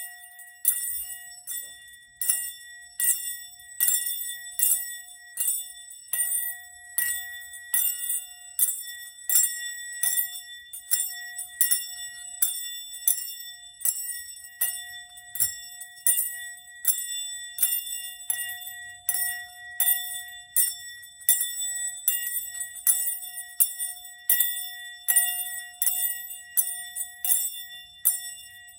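A small bell struck over and over in a steady rhythm, more than once a second, each strike ringing on at the same pitches.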